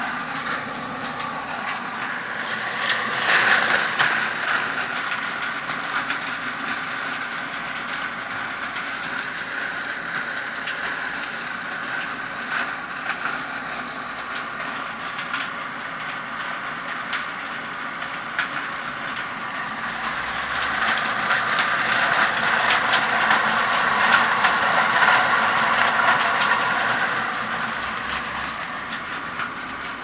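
Homemade leaf shredder driven by a washing-machine motor, running with a continuous rattling noise of dense clicks as it chops dry leaves. It gets louder briefly about three seconds in, and again for several seconds past the two-thirds mark.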